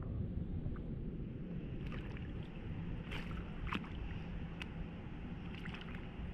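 Pool water lapping and sloshing as a wet fabric mermaid tail is handled and pulled off in the water, with a handful of short sharp splashes and drips over a steady low rush.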